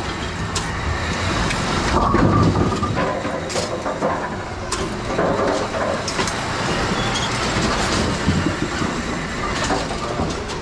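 Brunswick bowling pinsetter running through its cycle to set new pins: a steady mechanical clatter with scattered knocks and clanks.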